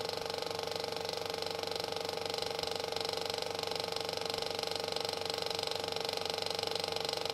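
Film projector running: a steady, fast mechanical clatter.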